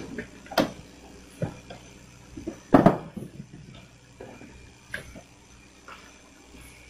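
Coconuts being tossed onto a pile, landing with irregular thuds and knocks, the loudest about three seconds in.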